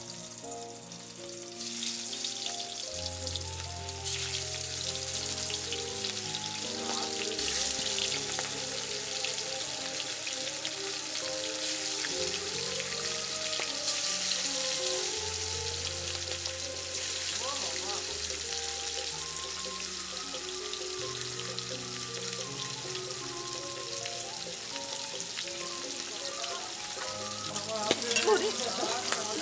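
Vegetable chunks sizzling as they fry in hot mustard oil in an aluminium kadai, with background music. Near the end a long metal spatula stirs and scrapes the pan.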